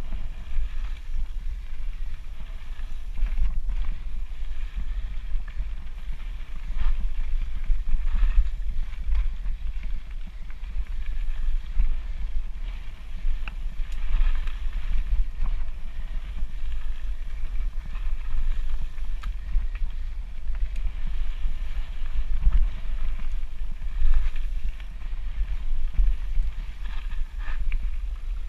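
Wind buffeting the camera microphone as a mountain bike rides a gravel singletrack, with the tyres crunching over the gravel and short clicks and rattles from the bike over bumps.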